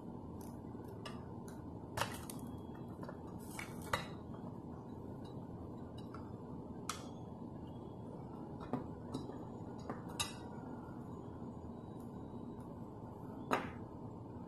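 Scattered clicks and knocks from a First Gear die-cast model front-loader garbage truck worked by hand: its small toy container and lift arms tap and clack against the model, over a steady low room hiss. The sharpest knock comes near the end.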